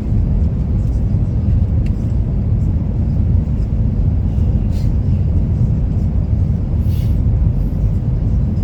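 Steady low rumble of an Airbus A350-900 heard from inside the cabin, with a couple of faint clicks partway through.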